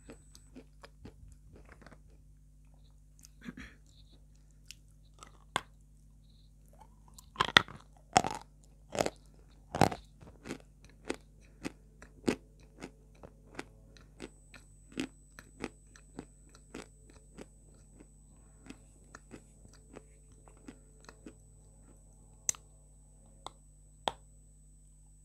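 Close-miked biting and crunchy chewing of hard, dry white chalk. A cluster of loud cracking bites comes about a third of the way in, followed by steady crunching chews roughly twice a second, with a couple of sharper snaps near the end.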